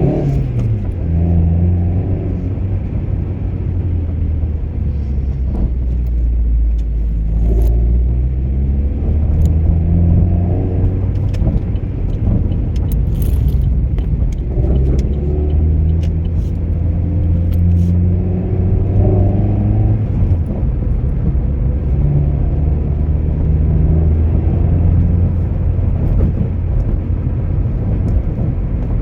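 Car engine heard from inside the cabin while driving, its note climbing and dropping back several times as it accelerates.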